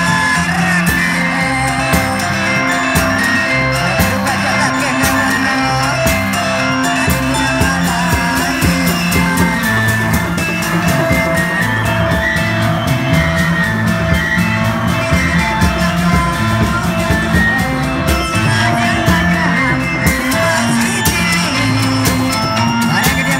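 Loud Indramayu reog procession music: a fast, busy drumbeat over a bass line that moves every half second or so, with a steady melody on top.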